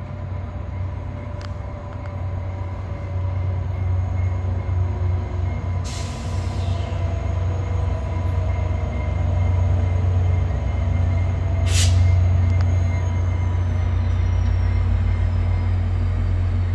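VIA Rail F40PH-2 diesel locomotive pulling a passenger train, its engine rumbling steadily and growing louder as it approaches. Two short hisses of air come about six and twelve seconds in.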